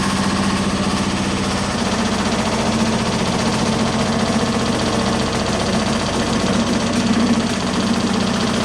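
Reciprocating sheet-metal shaping machine running, its dies hammering steel panel in a fast, steady run of strokes over a low motor hum, swelling slightly near the end.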